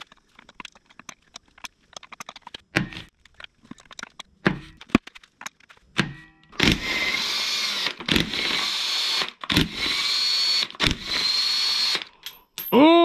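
Small clicks and taps of hand tools, then, about halfway through, a cordless drill/driver whirring in four runs of a second or two each with short breaks between, as it spins bolts out of the Audi 01E transmission case.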